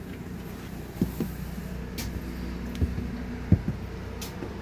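Steady low mechanical hum, with a handful of dull footsteps and knocks on a travel trailer's floor as someone walks through it.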